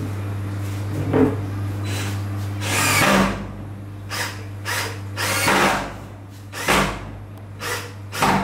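Power drill run in about nine short bursts over a steady low hum, the longest and loudest burst about three seconds in.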